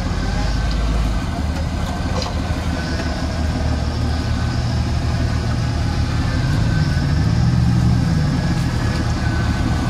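Off-road 4x4's engine running at low revs, rising briefly about seven seconds in and then settling back.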